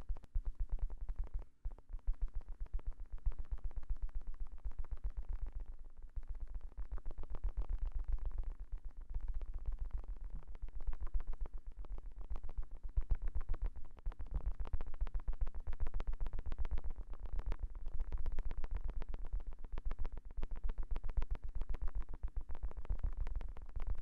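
Fast fingertip tapping on the silicone ears of a 3Dio binaural microphone: a rapid, dense run of soft, deep taps, with two short breaks early on.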